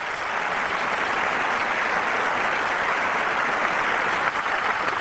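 Large audience applauding, building up quickly and then holding steady.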